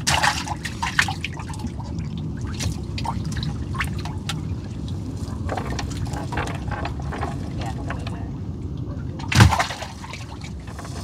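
Water splashing and dripping as fish are taken from a gill net in a small boat. There are scattered short splashes and one louder splash about nine seconds in, over a steady low rumble.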